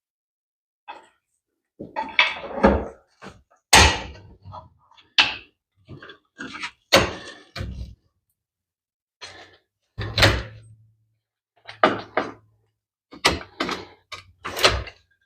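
Irregular metal knocks and clanks, about fifteen over the stretch, from hand tools worked against a Harley-Davidson Ironhead's kicker cover as it is worked loose.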